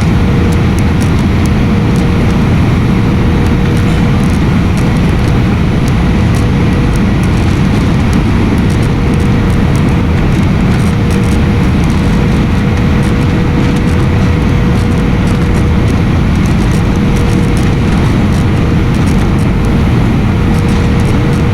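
Steady loud jet airliner cabin noise: engine and airflow roar heard from inside the cabin, with a faint steady hum tone running through it.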